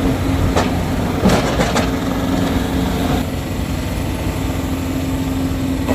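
John Deere 328E skid steer loader's diesel engine running steadily, with a few short bursts of clatter between about half a second and two seconds in.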